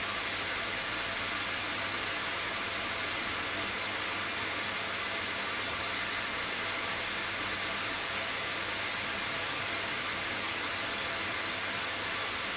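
Model beam engine hissing steadily as pressure escapes through its opened supply valve and cylinder, with a faint low hum underneath. There is no beat of strokes: the engine is not turning over.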